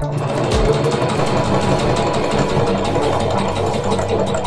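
Singer electric sewing machine running steadily at speed, stitching fabric, with its motor hum under the rapid needle strokes.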